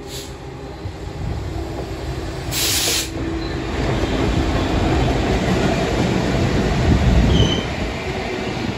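Two Class 66 diesel locomotives, each with a two-stroke EMD V12 engine, running light past at speed: engine drone with the rumble of wheels on the rails. It grows louder as they pass and is loudest about seven seconds in.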